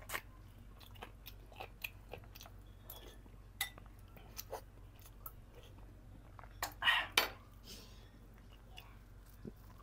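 Close-up eating sounds of boiled chicken and broth: chewing and lip smacks, sips from a spoon and light clicks of a spoon against a glass bowl, with two louder wet noises about seven seconds in.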